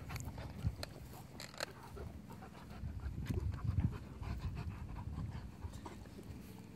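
A German shepherd and a black puppy play-wrestling: panting and rough mouthing noises, heaviest in the middle.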